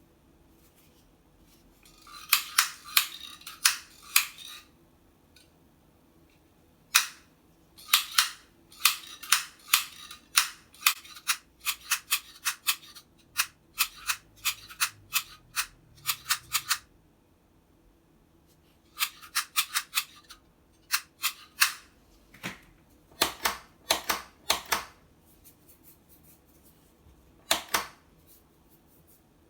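Sharp clicks and taps of small parts and hand tools being handled, in several bursts of quick strokes, with a brief scratchy rubbing in the first few seconds.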